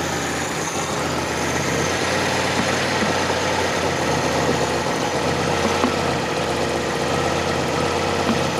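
Fiat Panda 4x4 Sisley's four-cylinder FIRE engine idling steadily with its airbox off, a hiss from the open carburettor intake over the engine note.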